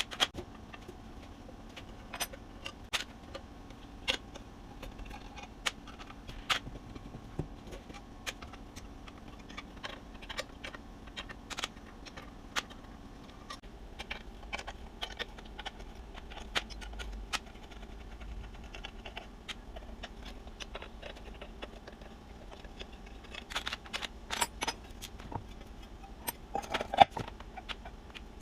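Scattered metallic clicks and clinks of hand tools and bench-grinder parts being handled, over a faint steady hum. The clinks come thicker and louder near the end.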